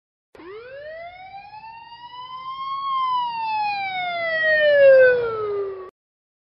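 Emergency vehicle siren giving one wail: the pitch rises for about two and a half seconds, then falls while growing louder, and cuts off suddenly near the end.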